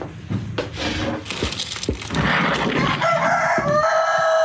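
Rooster crowing: one long call in the second half, ending on a held steady note that cuts off sharply. A few light knocks come before it.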